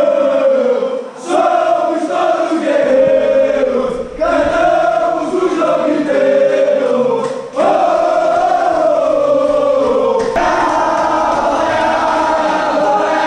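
A crowd of football supporters singing a chant together, in long phrases with short breaks between them.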